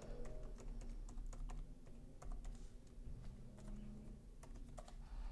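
Computer keyboard keys being typed in a faint, irregular run of light clicks as a password is entered, over a faint low hum.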